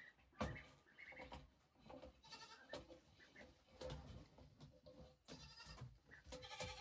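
A goat bleating three times, with sharp knocks and rustling from cord and lamp being handled between the calls.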